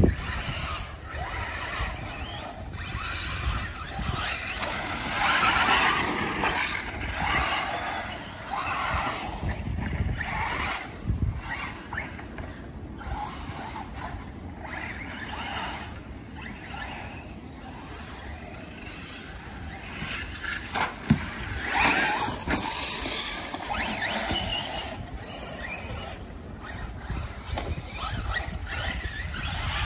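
Radio-controlled cars driving around a dirt track: motors whining and tires scrabbling on dirt, swelling and fading as the cars pass close and move away. A sharp knock comes about two-thirds of the way through.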